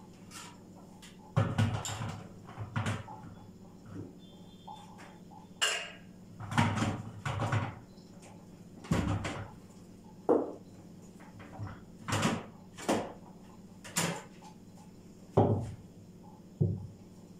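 Plastic clunks and clicks as the bowl and lid of a food processor are handled and fitted onto its base: a dozen or so separate knocks, with no motor running.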